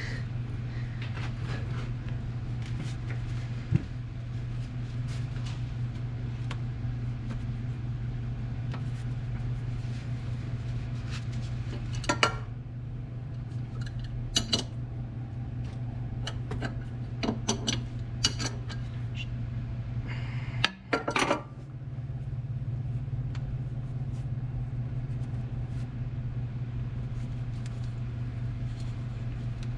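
Metal tools clinking now and then against hydraulic hose fittings, a few sharp clinks over a steady low hum.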